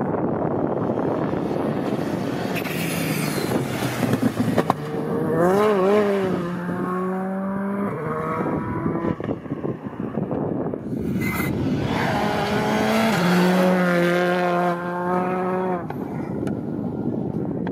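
Skoda Fabia Rally2 evo rally cars driven hard, their turbocharged four-cylinder engines revving up and dropping in pitch through quick gear changes, over steady tyre and road noise. One run of engine revs comes about five seconds in and another a few seconds after the middle.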